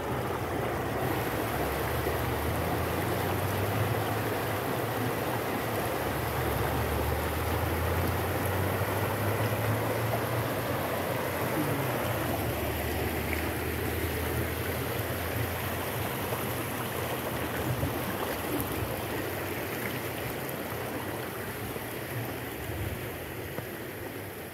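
Stream water rushing over rocks through small rapids, a steady rush with a low rumble underneath for much of it, easing off somewhat near the end.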